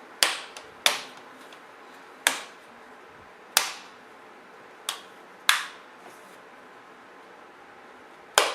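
The plastic screen bezel of an HP Pavilion G7 laptop being pried off by finger, its retaining clips snapping loose one after another: seven sharp clicks at uneven intervals, a second or more apart.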